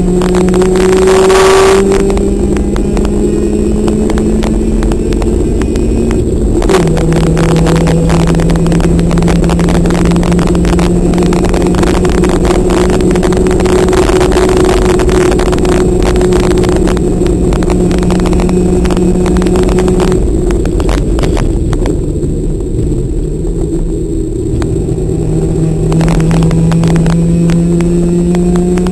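Race car's engine heard from inside the car, running hard at speed. Its pitch jumps up about two seconds in and drops sharply about six seconds in, as with gear changes. It eases off and goes quieter around twenty seconds in, then builds again near the end.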